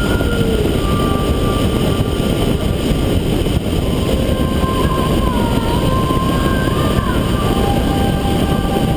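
Cessna 172 in flight heard from a camera mounted outside on the wing: a steady, loud rush of wind over the camera with the engine and propeller drone beneath, and faint wavering tones above it.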